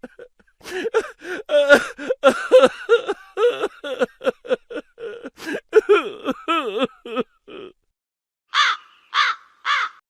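A rapid string of short, pitched cawing calls, several a second with wavering pitch, breaking off about three quarters of the way through; then three separate calls falling in pitch near the end.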